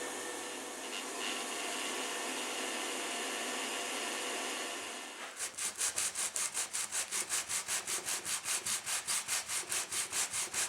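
A steady machine hiss for about five seconds, then a block of mahogany rubbed back and forth on sandpaper by hand, about four or five even strokes a second, to flatten and sharpen the edge of the end-cap piece.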